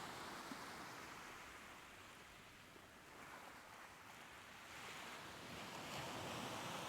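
Soft ocean waves washing on a shore, a gentle wash that ebbs away in the middle and swells back up near the end.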